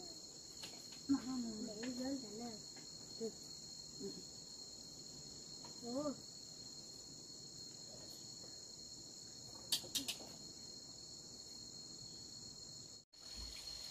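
Steady high-pitched insect chorus, an unbroken hum that holds through the whole stretch, with a few short voice-like sounds and a couple of sharp clicks over it. It drops out for an instant near the end.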